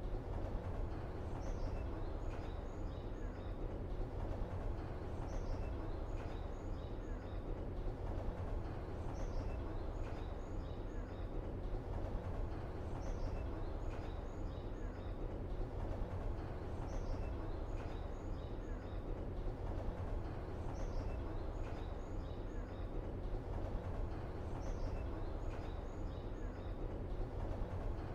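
Steady low rumble of background ambience with a short cluster of high chirps repeating about every four seconds, as in a short ambience track looped over and over.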